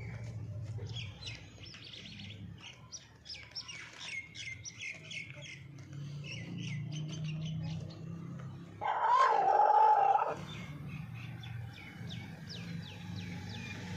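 Small birds chirping in quick runs over a steady low hum. About nine seconds in, a rooster crows once: a loud, wavering call of about a second and a half, the loudest sound here.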